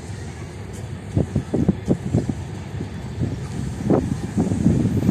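Arriving passenger train rumbling low, with irregular knocks and thumps. It grows louder about a second in and again near the end.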